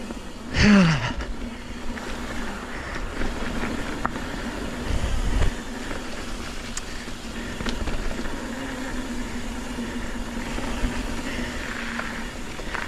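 Mountain bike riding down a dirt trail: steady rumble of tyres and wind on the helmet-mounted camera with a steady low hum. A loud falling pitched sound comes about half a second in, and a low thump around five seconds in.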